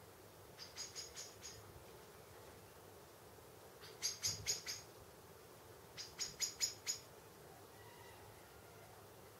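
High, sharp chirps from an unseen small animal, in three quick runs of five or six, each run lasting about a second.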